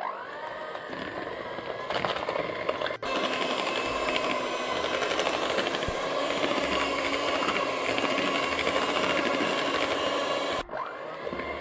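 Moulinex electric hand mixer beating butter in a plastic bowl. The motor spins up at the start, cuts out briefly about three seconds in, then runs steadily, stops near the end and starts again.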